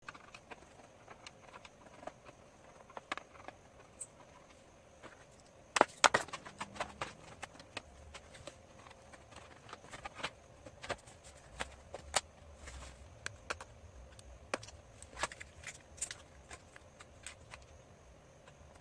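Scattered small clicks, taps and knocks of hands working on a computer during a RAM upgrade, with a cluster of louder clicks about six seconds in.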